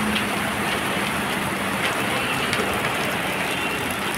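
Heavy rain falling steadily onto a flooded street, an even hiss.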